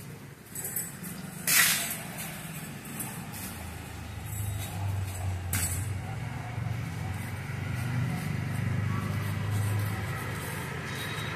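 Low rumble of a motor vehicle engine, swelling over several seconds in the middle, with two sharp clicks in the first half.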